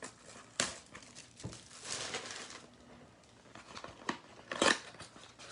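A cardboard trading-card mini box being opened and its packs taken out: soft rustling with a few sharp taps and clicks, the loudest about a second before the end.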